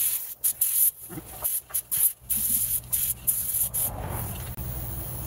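Compressed-air paint spray gun hissing in a run of short bursts as the trigger is pulled and released, spraying a coat of enamel. The bursts stop about three and a half seconds in, leaving a steady low hum, likely the air compressor running.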